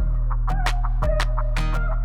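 Background electronic music with a steady beat, heavy bass and a warbling synth line.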